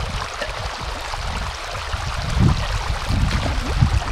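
Water running through a breach in a beaver dam, with sloshing and splashing as a large body-grip trap is lowered into the shallow water by a man wading; the splashes get heavier in the second half.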